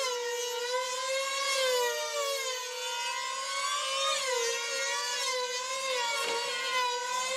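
Two F2D control line combat models' small 2.5 cc glow engines screaming at full throttle, a high steady whine whose pitch wobbles up and down as the planes circle the pilots.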